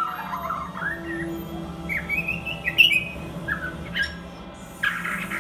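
Caged white-crowned shama singing: a run of short whistled phrases that glide up and down, with a harsher squawking note near the end. A steady low hum runs underneath.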